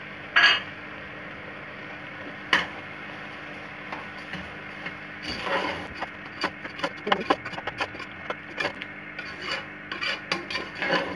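A long metal spoon scraping and stirring sugar into grated carrots in a metal pressure-cooker pot, with gritty rasping strokes against the pot. There are a couple of single scrapes early, then a quick run of many scraping strokes from about five seconds in.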